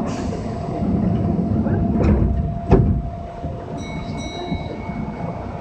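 Kintetsu Minami-Osaka Line local train heard from inside the car as it pulls away: a running rumble with a steady hum, a short hiss right at the start, and two sharp knocks about two and three seconds in. A higher, steady whine sets in near the end.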